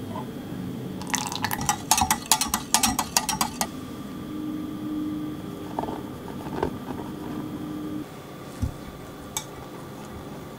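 A wire whisk clinking rapidly against the sides of a glass measuring jug for a few seconds as it stirs liquid cheesecake batter. Then a few soft knocks over a faint steady hum.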